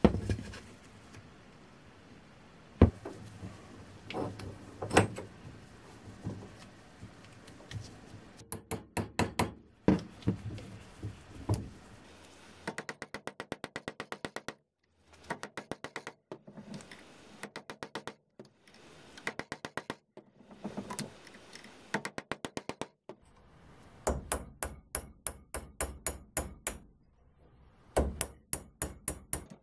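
Hammer striking a steel punch to drive the old wooden handle remains out of the eye of a rusty axe head clamped in a vise. A few single blows at first, then quick runs of many blows with short pauses between them.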